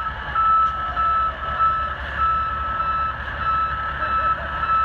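Back-up alarms on reversing tow trucks, beeping in a steady run of high tones with several beepers overlapping so the gaps barely show, over a low diesel engine rumble.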